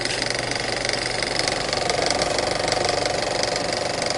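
Intro sound effect of a film projector running: a steady, fast mechanical clatter.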